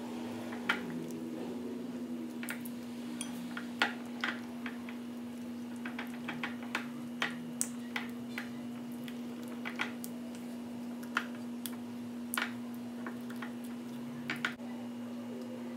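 Silicone spatula stirring melted chocolate and cream into ganache in a glass bowl, with irregular clicks and taps against the glass. A steady low hum runs underneath.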